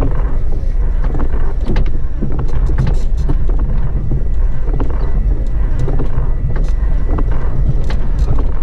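Small 4x4 driving slowly over a rough, stony track, heard from inside the cabin: a steady low rumble of engine and tyres with frequent knocks and rattles as the vehicle jolts over the stones.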